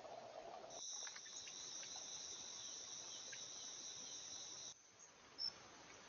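Insects trilling steadily at a high pitch, starting abruptly about a second in and cutting off abruptly near the end.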